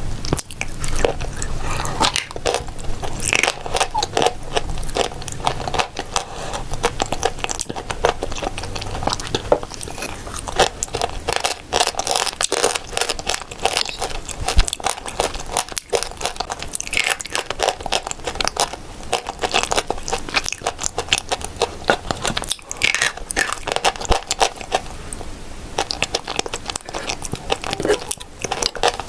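A person biting and chewing crunchy blue Uzbek edible clay paste close to the microphone: a continuous run of crackling crunches.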